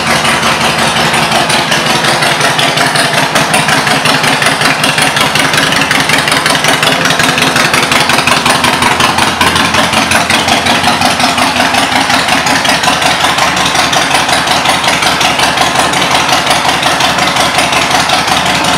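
2003 Harley-Davidson Fat Boy's Twin Cam 88B V-twin idling steadily through Vance & Hines aftermarket pipes.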